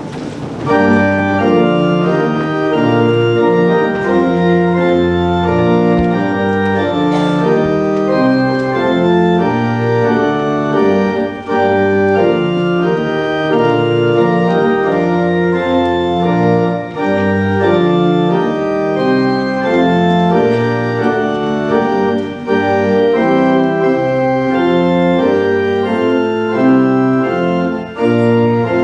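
Pipe organ playing slow, sustained chords, coming in under a second in, with short breaks between phrases about every five to six seconds.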